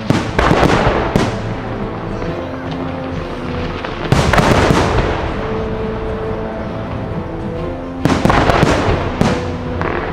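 Fireworks bursting in three volleys about four seconds apart, each a cluster of bangs and crackle, over steady background music.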